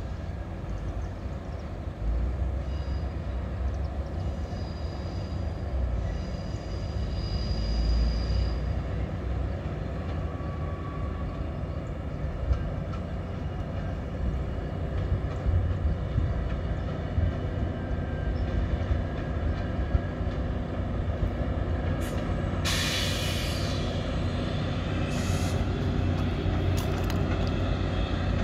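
Diesel-hauled EXO commuter train passing slowly at close range, its locomotive engine running with a steady low drone. About three-quarters of the way through, a high hissing squeal of wheels on the rails comes in and recurs in short bursts.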